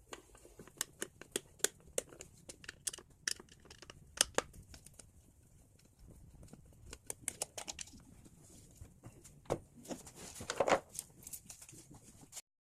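Irregular small clicks, ticks and scrapes of a small Phillips screwdriver turning out the two screws that hold a distributor cap, with the handling of the cap and parts. A denser scraping rustle comes about ten seconds in, and the sound cuts off abruptly just before the end.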